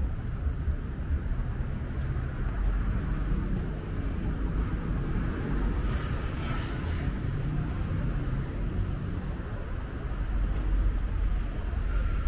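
City street ambience: a steady low rumble of traffic, with a brief hiss about six seconds in.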